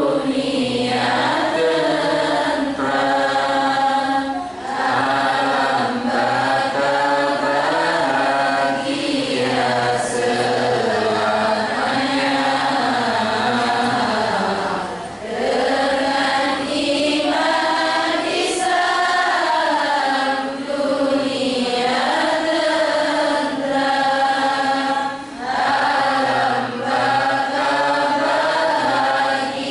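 A man chanting an Islamic devotional song from a songbook into a microphone. The long, wavering melodic phrases are broken by a few brief pauses for breath.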